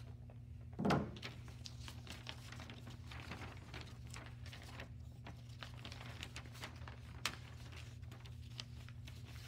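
Faint room sound with a steady low hum; a single thump about a second in, then scattered light clicks and rustles, with one sharper click near the end.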